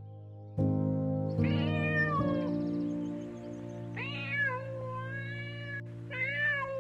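A domestic cat meowing three times, each meow drawn out with a bending pitch, over background music with sustained notes.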